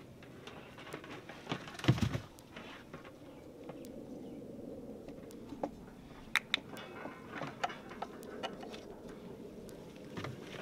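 Scattered knocks and clicks of a plastic solar flood light being handled and fitted against a log wall, with one loud thump about two seconds in and a quick cluster of clicks a little past six seconds.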